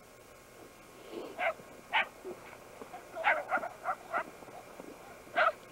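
Shetland sheepdogs barking in short, sharp yips: two single barks, then a quick run of about five, and one more near the end.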